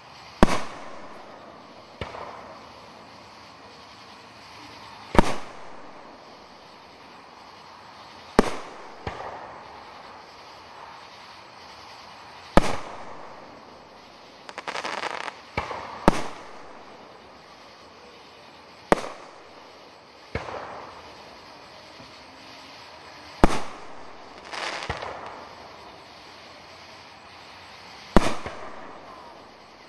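Aerial firework shells bursting in a display: about a dozen sharp bangs a couple of seconds apart, each followed by a rolling echo that fades away.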